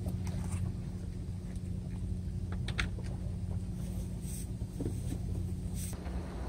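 A few light knocks of a knife on a plastic cutting board while fish are being cleaned, about two and a half seconds in and again later, over a steady low rumble.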